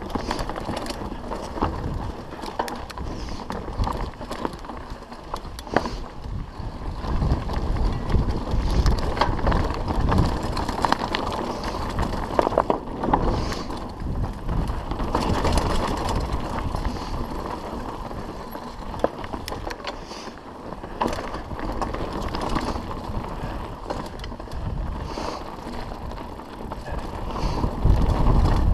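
Mountain bike riding fast down rough dirt and rocky singletrack: tyres crunching over the ground, with constant rattling and knocks from the bike as it hits bumps, and wind rumbling on the microphone.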